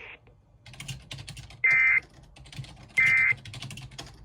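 Emergency Alert System end-of-message data bursts: short, loud, raspy bursts of digital tones, two about 1.3 s apart and a third starting right at the end, marking the close of the weather radio test message. Keyboard clicks sound between them.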